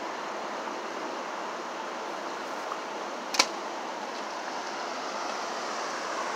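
Steady rushing noise of city street traffic. A single sharp click stands out about three and a half seconds in.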